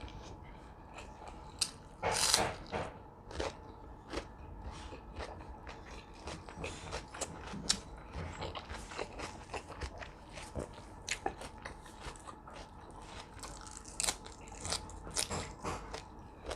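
Close-up eating sounds: chewing and biting with many small crunches and mouth clicks scattered through, and a louder crunching noise about two seconds in.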